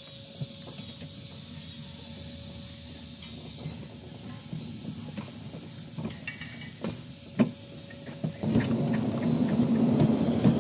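Ride-on miniature live-steam train rolling along its track: a steady low rumble of wheels with scattered clicks and knocks, growing louder about eight and a half seconds in.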